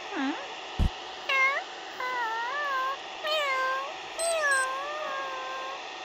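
A cat meowing about five times in a row, the later meows long and bending up and down in pitch, with one sharp tap about a second in.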